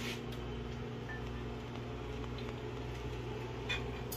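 Steady low hum of a running household appliance, with a faint click near the end.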